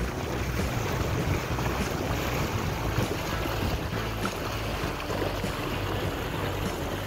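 Wind on the microphone and water washing past a sailboat's hull as it moves along, with a steady low rumble underneath.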